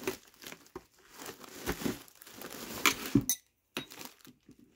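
Plastic poles being pushed into the sockets of a plastic organizer tray: irregular light knocks and clicks of plastic on plastic with some rustling, and two sharper clicks about three seconds in.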